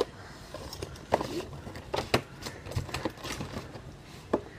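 Cardboard packaging box being handled and opened by hand: a few short, scattered taps and scrapes of the box against the hands and desk.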